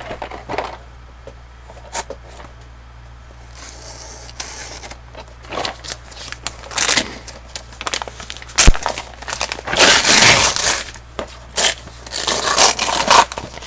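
Gift wrapping paper being torn and peeled off a box in irregular rips and crinkles, getting busier and louder in the second half. One sharp tap about two-thirds of the way through.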